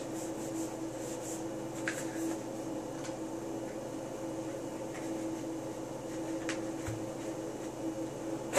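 A steady hum with a few faint rustles of a paper towel wiping out the inside of an AR-15 upper receiver, and one sharp click right at the end.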